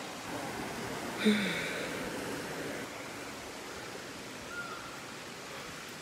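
Small creek cascade rushing steadily over rocks, with a brief voice about a second in.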